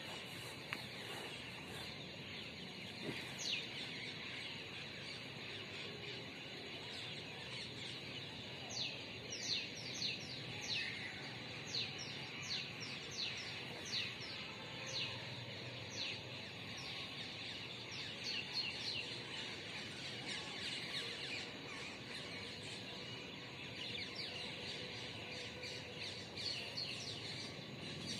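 Birds chirping: many short, high calls, each sweeping quickly down in pitch, repeated every second or so over a steady background hiss.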